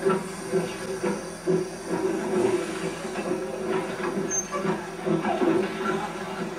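Small steam tank locomotive working away from standstill, its exhaust beating in a run of repeated chuffs over a hiss of steam.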